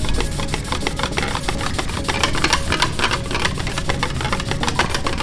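Rapid metallic clicking and rattling as a painted metal plate is rubbed back and forth with a fuel-soaked cloth, the plate knocking against the expanded-metal grate it lies on, many clicks a second.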